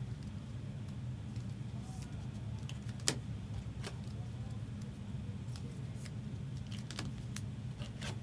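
Trading cards being sleeved and slipped into plastic toploaders and cases: scattered light plastic clicks and rustles, the sharpest click about three seconds in, over a steady low hum.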